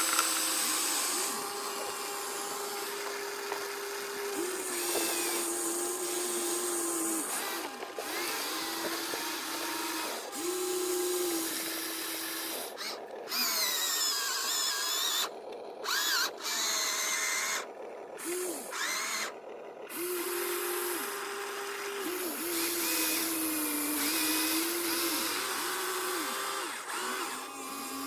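Small electric motors and gears of radio-controlled construction models whining, the pitch stepping up and down as they start, stop and change speed. In the middle come several short stops and restarts, with quick rising and falling sweeps in pitch.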